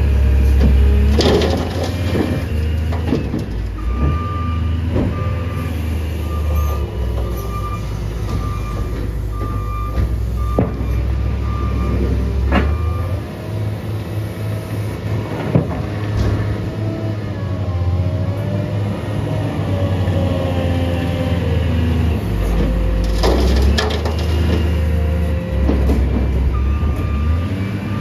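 Diesel engines of a Case wheel loader and a Loadmaster rear-loader garbage truck running, the engine pitch rising and falling as the loader works. A backup alarm beeps steadily for several seconds early on and starts again near the end. Sharp clanks of the steel bucket and hopper come as the leaves are dumped and scooped.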